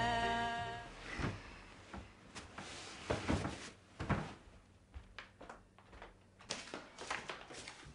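Soft rustling of bedding and a few light knocks as a child climbs off a bed and moves away, while music fades out in the first second.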